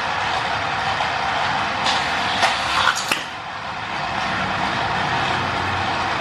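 Hot Wheels 2-Speed Power Booster's battery motor whirring steadily, with a few sharp clicks about two and a half to three seconds in.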